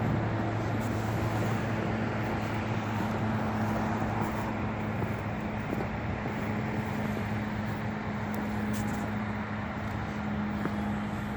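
A vehicle engine running steadily: a constant low hum over an even rushing noise, with a second, higher steady tone joining about a second in.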